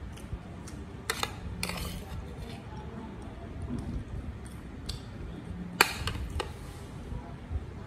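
Metal spoon clinking and scraping against a ceramic plate while eating rice: a few sharp clinks, the loudest about six seconds in.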